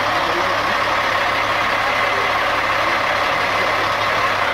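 Diesel engine of a large semi-truck running steadily as the truck pulls slowly in, with a steady low hum.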